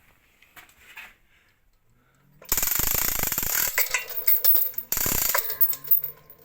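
Hand-operated chain block being worked: metal chain rattling through the block with fast ratcheting clicks, a loud stretch of about three seconds starting about two and a half seconds in, then lighter chain clinks.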